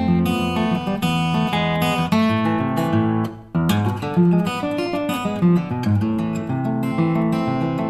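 Background music led by strummed acoustic guitar, with a brief break about three and a half seconds in.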